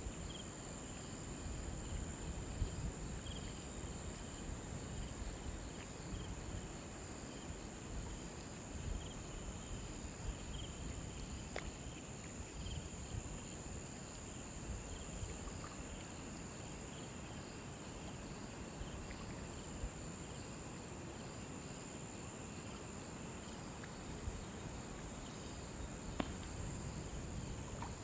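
Crickets chirping in a steady high trill, with a fainter, pulsing chirp lower down, over a low rumble.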